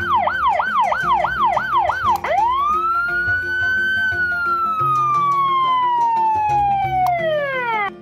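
Police car siren: a fast yelp rising and falling about three times a second, then one long wail that rises and slowly falls, dropping away near the end. Background music plays underneath.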